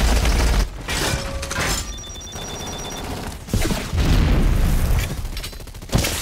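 Action-film sound effects: a run of heavy booms and blasts with a deep rumble, loudest in the first second and again around four seconds in.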